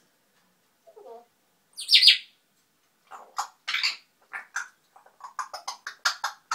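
African grey parrot babbling: a short low call about a second in, a loud harsh call about two seconds in, then a rapid run of short chirping calls to the end.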